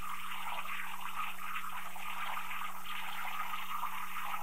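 Steady hiss of air and water churning in a plasma table's water bed under the parked torch, over a faint steady low hum.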